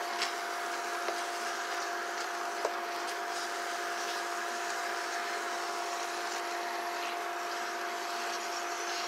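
Pork and tomatillo salsa cooking in a ceramic frying pan, giving a steady sizzling hiss over a constant hum, with a few light clicks of a plastic spoon against the pan during the first few seconds as it is stirred.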